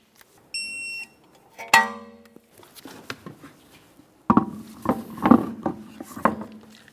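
A short, steady electronic beep, then a sharp metallic clank that rings briefly. Near the end comes a run of knocks and clunks as the road wheel is lifted onto the hub.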